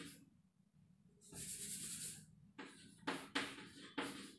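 Faint chalk scratching on a blackboard as a word is written: one longer scratch about a second in, then a run of short, quick strokes.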